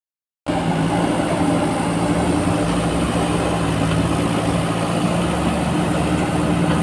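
Diesel engine of a JCB 4DX backhoe loader running steadily at a constant speed, cutting in about half a second in.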